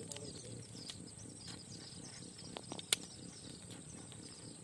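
A small fire of dry twigs crackling, with a few sharp pops, the loudest about three seconds in, over a steady high-pitched insect drone.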